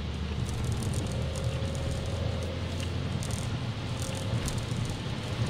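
Steady engine and road drone heard from inside a car's cabin driving on a wet track, with short scattered crackles of water and rain.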